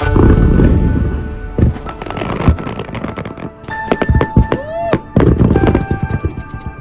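A fireworks display, with rapid shell bursts and bangs mixed with crackle, set to loud music with held tones.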